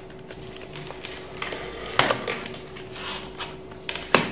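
Handling noise from a plastic handheld digital multimeter and its probe leads being moved about on a wooden table: soft rustles with a sharp click about two seconds in and another knock near the end, over a faint steady hum.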